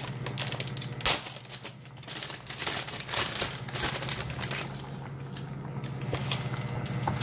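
Plastic instant-ramen packet crinkling as it is handled and opened, in many short, irregular crackles over a steady low hum.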